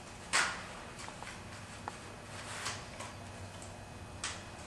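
Cimatec air-cleaner housing being opened and handled: one sharp snap about a third of a second in, then scattered lighter clicks and a brief rustle.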